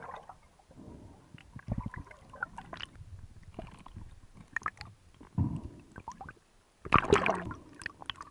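Underwater sound picked up through a housed action camera mounted on a speargun: scattered clicks and crackles of water and gear moving around the housing, with two louder surges of water noise about five and seven seconds in.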